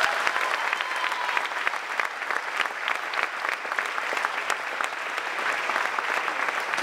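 Large audience applauding steadily, a dense, even patter of many hands clapping.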